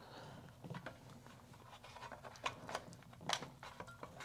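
Faint scattered clicks and knocks of parts being handled as a Kirby Generation 3 vacuum's motor assembly is worked by hand into its housing, the sharpest knocks about two and a half and three and a half seconds in.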